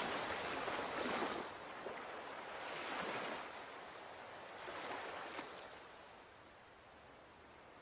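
Sea waves washing in on a shore, each swell rising and falling about every two seconds and growing fainter toward the end.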